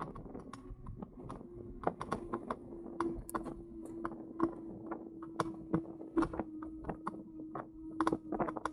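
E-bike ticking and rattling irregularly, with a steady hum coming in about two seconds in.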